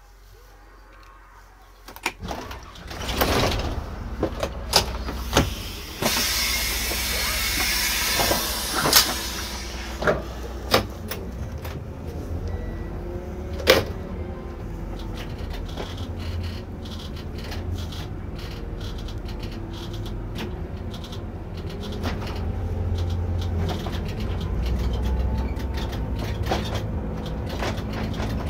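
Irisbus Récréo II coach starting up and moving off, heard from the driver's seat: a few clicks and knocks, a hiss of compressed air for a few seconds, then the steady low run of the engine and drivetrain with slowly rising and falling tones.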